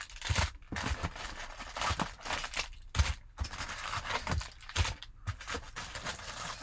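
Foil wrappers of Bowman Draft Super Jumbo trading card packs crinkling and rustling as the packs are pulled out of their cardboard box, with uneven scrapes and light knocks against the cardboard.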